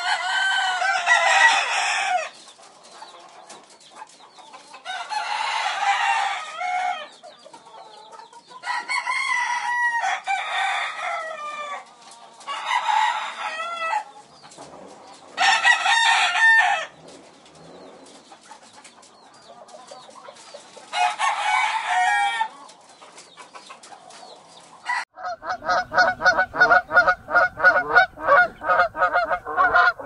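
A rooster crowing again and again, several separate crows of one to two seconds each with pauses between them. From about 25 seconds in, a flock of domestic geese honks in a quick, continuous run of short calls.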